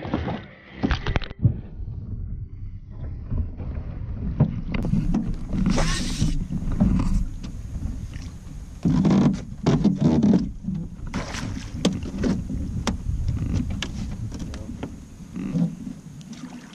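Irregular knocks and scrapes on the hull of a small boat, over a low rumble of wind buffeting the microphone.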